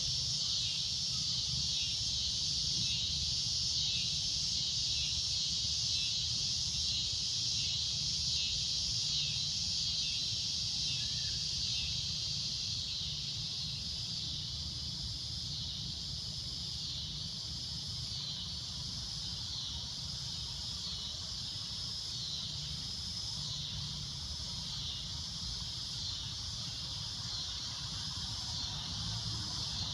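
Cicadas droning: a loud, shrill, continuous buzz with a faint regular pulsing in it, over a low rumble.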